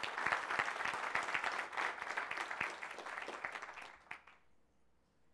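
Audience applauding, many hands clapping at once, dying away about four seconds in.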